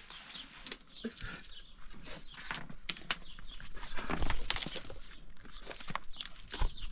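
Livestock sounds: animals moving about, with irregular knocks and scuffs.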